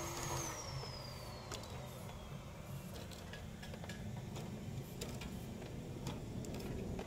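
Low engine rumble of passing road traffic, with a high whine that falls in pitch over the first couple of seconds and scattered light clicks.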